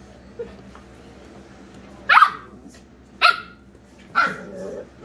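Dog barking in a play fight between a corgi and a long-haired dachshund: three sharp barks about a second apart, starting about two seconds in.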